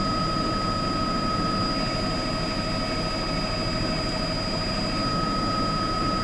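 News helicopter's engine and rotor noise, a steady drone with a constant high whine over it.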